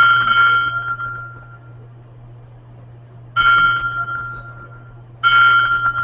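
Three electronic chime tones from a data sonification, each struck suddenly and fading over about a second: one at the start, one about three and a half seconds in, one about five seconds in. Each tone marks one Divvy bike trip at a station. A steady low hum runs underneath.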